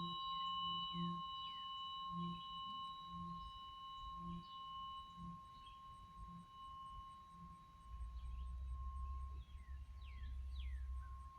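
A struck bell-like tone, one steady pitch with higher overtones, ringing on and slowly fading. Faint short falling chirps sound above it.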